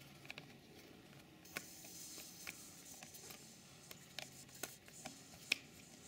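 Air hissing faintly out of a scooter tire's valve as the valve core is unscrewed with needle-nose pliers, the hiss starting suddenly about a second and a half in. Small clicks of the pliers against the metal valve and rim come through it.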